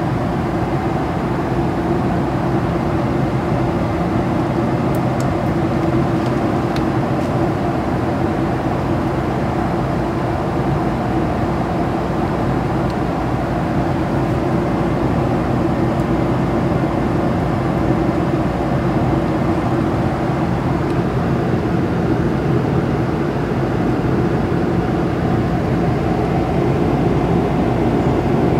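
Steady drone inside a jet airliner cabin in flight: turbofan engine and rushing airflow noise heard from a window seat.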